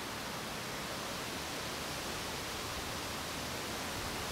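Steady breeze outdoors, an even hiss with no distinct events.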